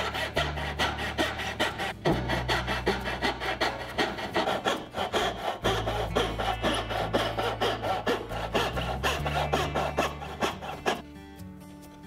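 Backsaw cutting by hand through a small wooden board in steady back-and-forth strokes. The sawing stops about a second before the end.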